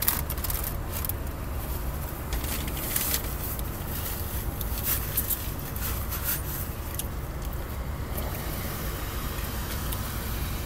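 Paper food wrapper crinkling and rustling in short crackles, over the steady low hum of the car idling.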